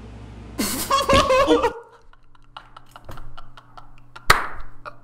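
A brief loud vocal cry, then soft laughing over a run of small sharp clicks, with one sharp knock about four seconds in.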